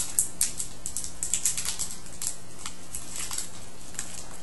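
Foil wrapper of a 2013-14 SPx hockey card pack crinkling and crackling as it is torn open and the cards are pulled out, in quick irregular crackles that thin out near the end.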